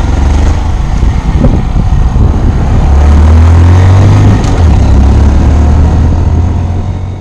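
Heavy wind buffeting on the microphone, loud and rumbling, over a 2019 Honda Monkey's 125cc single-cylinder four-stroke engine pulling away and accelerating.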